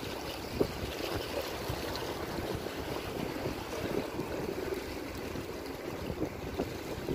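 Steady wind noise on the microphone with small sea waves washing against shoreline rocks.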